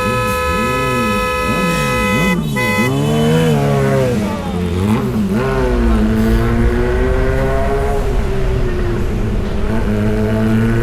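Multi-tone musical vehicle horn: a held chord for about three seconds over warbling, wavering notes, then a string of sliding, wavering horn notes. A vehicle engine rises slowly in pitch through the second half.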